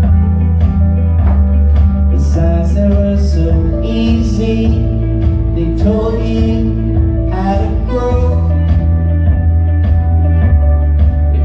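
Live band music from a duo: hollow-body electric guitar and keyboard playing over a heavy, steady bass.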